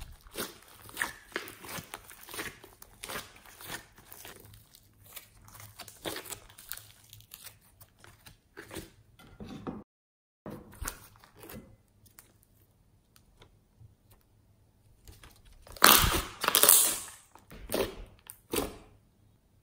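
White fluffy slime being squeezed, stretched and folded by hand, crackling and popping with many small clicks as air pockets burst. Near the end come two louder bursts of squishing as the slime is pressed into a glass bowl.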